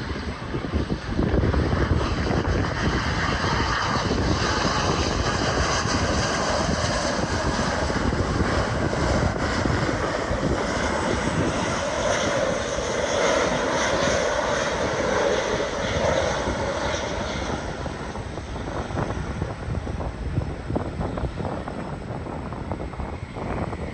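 Jet airliner on landing approach passing by. Its engines run loud from about a second and a half in, with a whine that falls in pitch as it goes past, then fade toward the end.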